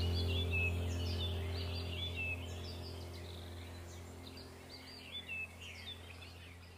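Small birds chirping and twittering over a steady low hum, the whole gradually fading out.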